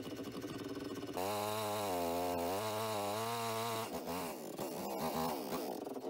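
Chainsaw running at idle, its pitch wavering. About a second in it becomes louder and steadier, and just before four seconds it drops away and shifts.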